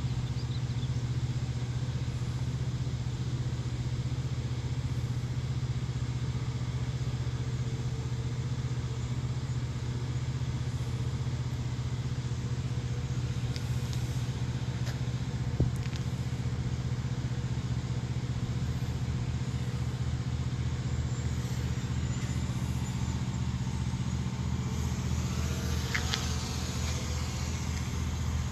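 Steady low rumble of idling truck engines, pulsing slightly, with a sharp click about halfway through and a brief high-pitched squeal near the end.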